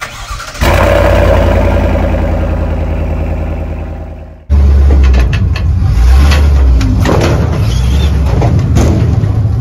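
A steady pitched drone fades away over about four seconds. Then a truck's V8 engine cuts in, running loud through its exhaust: a deep rumble that surges and wavers.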